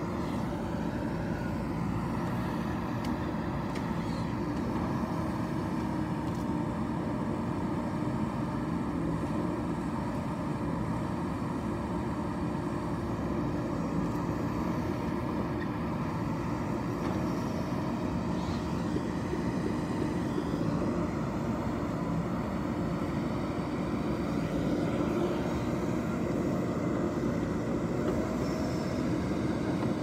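JCB 3DX backhoe loader's diesel engine running steadily while the backhoe arm digs soil and swings to load a tipper truck.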